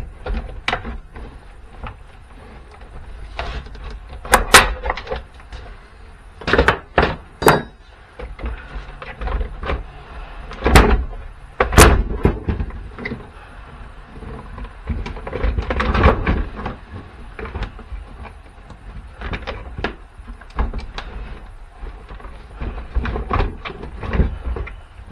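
A battery booster pack's housing being pried and broken open with a pry bar: a string of sharp cracks, snaps and knocks, the loudest in the first half, with scraping and rattling of the parts between them.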